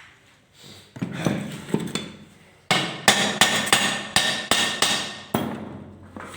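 Hammer striking a metal part of a car window regulator. A few separate blows come first, then a run of about eight sharp blows at roughly three a second.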